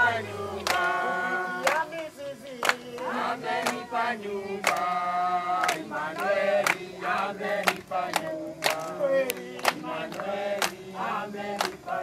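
A choir singing a gospel worship song over a steady percussion beat and a held low note.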